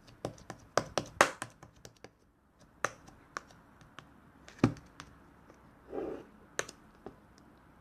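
Slime being worked by hand, giving irregular sharp clicks and pops, thickest in the first second or so, with a softer, duller squish about six seconds in.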